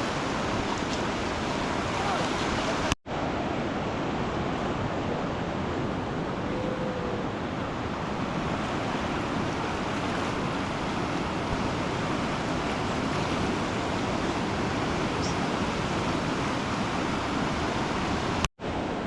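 Steady rushing of a river in heavy flood, with two momentary dropouts, one about three seconds in and one near the end.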